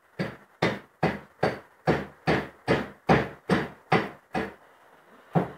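Hammer blows on wood: eleven even, steady strikes a little under half a second apart, then a single last blow after a short pause near the end.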